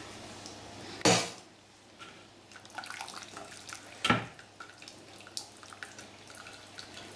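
Chicken bone stock draining and dripping through a stainless-steel mesh strainer into a bowl, with two sharp knocks of cookware, about a second in and again some three seconds later, and light clinks in between.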